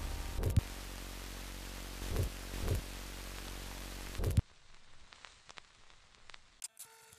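Logo-sting sound effect: a film-static hiss over a low hum, broken by four dull thumps. It cuts off suddenly after the last thump, leaving only faint clicks.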